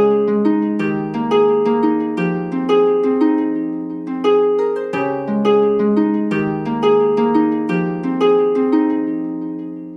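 Background music: a harp playing gentle plucked arpeggios, each note ringing out and fading, a couple of notes a second.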